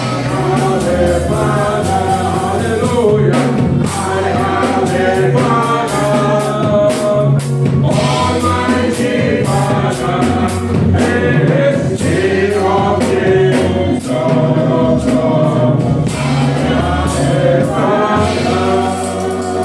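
Gospel praise song sung by a group of voices over a band, with held bass notes and a percussive beat.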